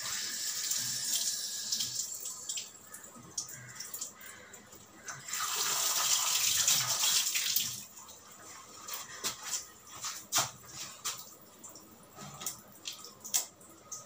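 Water running from a kitchen tap in two spells, the second one, about five seconds in, louder and lasting a couple of seconds. After it come scattered sharp clinks and knocks of kitchenware being handled.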